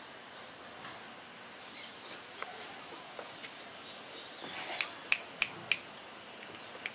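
Fingers snapping to call a dog: faint clicks from about two seconds in, then three sharp snaps about a third of a second apart around five seconds in.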